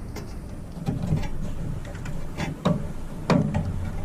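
A string of sharp plastic clicks and knocks, irregularly spaced: a microwave oven's snap-in door limit switch being unclipped from its mounting, since it is held by a clip rather than a screw.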